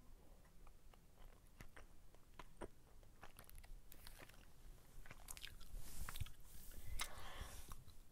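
Crisp close-up clicks and crackles, scattered at first and coming thicker from about five seconds in.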